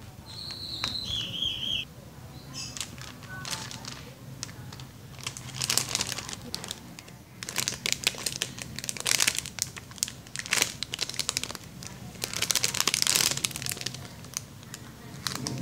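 A clear plastic packaging bag crinkling and crackling in irregular bursts as hands grip and work it around a soft foam squishy toy. Near the start come two short high squeaky tones.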